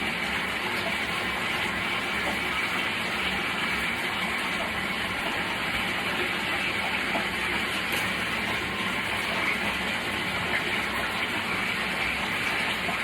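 Kuppet portable twin tub washing machine spinning a load in its spin dryer: a steady motor hum and whir that holds even throughout.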